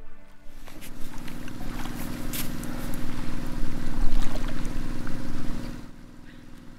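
A small engine running steadily, swelling toward the middle and dropping away about six seconds in, with scattered knocks and clatter over it.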